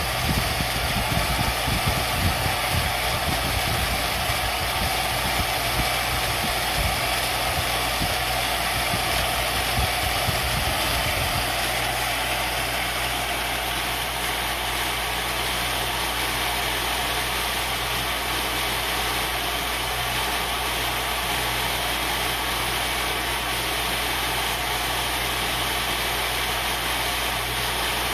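CNC-converted Little Machine Shop X2D mini milling machine running, its end mill cutting into a wooden board. A steady machine hum throughout, with an uneven low rumble for roughly the first eleven seconds that then settles into an even drone.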